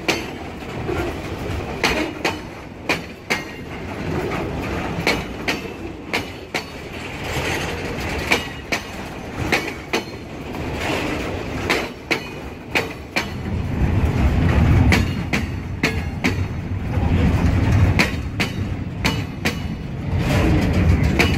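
Loaded container wagons of a freight train rolling past close by: the steel wheels click over the rail joints again and again over a steady rumble. The rumble grows heavier and deeper about two-thirds of the way through.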